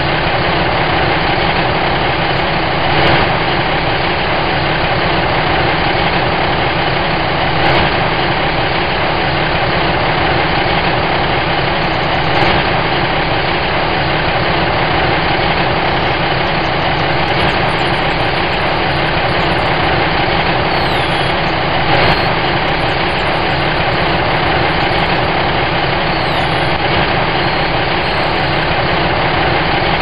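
Steady idling truck engine, unchanging in level, with a few faint knocks. Faint bird chirps come in over it in the second half.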